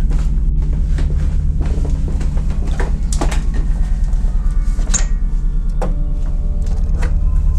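A slatted wooden cupboard door being opened and handled in front of a fuse box: a series of knocks and clicks, the sharpest about three and five seconds in. A low steady drone runs underneath.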